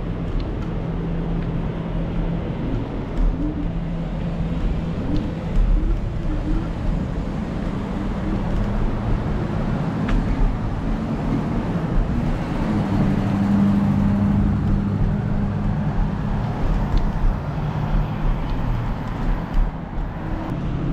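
Street traffic: a motor vehicle's engine hum over steady road noise, the hum rising a little in pitch and loudness about twelve seconds in.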